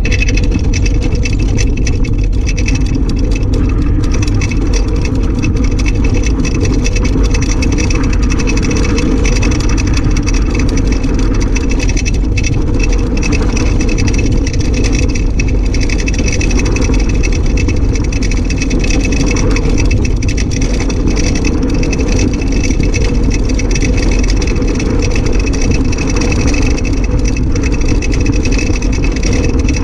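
Unpowered soapbox car rolling fast downhill on a rough road surface: a loud, steady rumble of the wheels and rattling chassis with no engine, and a faint steady high whine over it.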